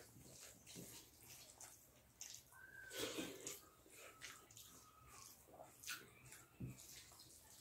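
Faint wet chewing and mouth clicks from people eating rice and curry by hand, with fingers squelching through the food on steel plates; a string of short, soft, sticky clicks.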